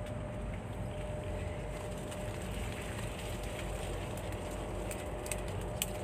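Steady low rumble of handling noise on a handheld camera's microphone as it moves through undergrowth. A few light rustling clicks come near the end.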